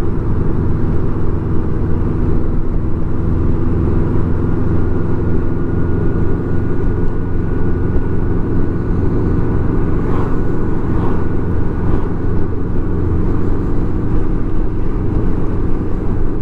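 Touring motorcycle cruising at a steady speed on an open highway: a steady engine drone with wind and road rush on the bike-mounted microphone. A faint thin whine comes in about four seconds in and fades out near the end.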